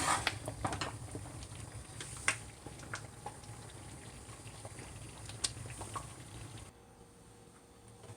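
Pot of pigeon pea soup bubbling, with scattered small pops and clicks. A low background hum cuts out near the end.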